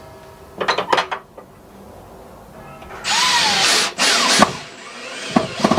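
Cordless drill-driver driving a screw into the timber gate post to fix a gate bolt's keep. Two brief trigger bursts come just before a second in, then a longer run about three seconds in whose motor pitch drops and rises as the screw bites, and a few sharp clicks near the end.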